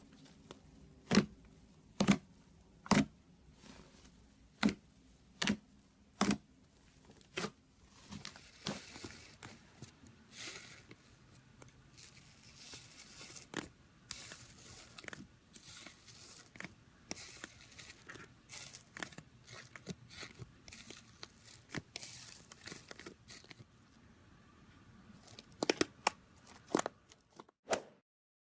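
Slime being played with: a run of sharp pops about once a second, then a long stretch of crackling and crunching, and a few more pops near the end.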